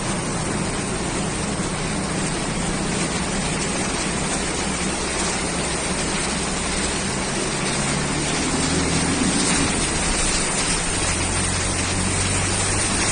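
An engine running under way beneath a loud, steady rush of wind or water noise. Its low note shifts with the throttle, rising briefly about two-thirds of the way through.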